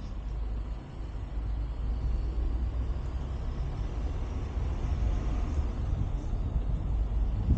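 Winnebago Ekko camper van driving, a steady low rumble of engine and road noise that grows a little louder near the end.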